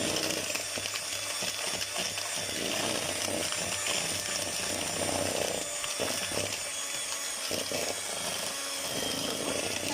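Electric hand mixer running steadily, beating egg yolks and sugar while milk is added a little at a time for a lemon pastry cream.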